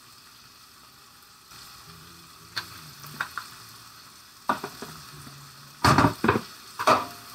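Collard greens sizzling as they sauté in walnut oil in a skillet. Light clicks in the middle and several loud knocks near the end.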